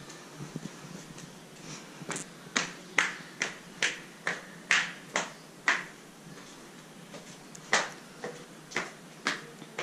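Footsteps climbing concrete stairs: sharp steps about two a second, starting about two seconds in, pausing for a second or so near the middle and then carrying on.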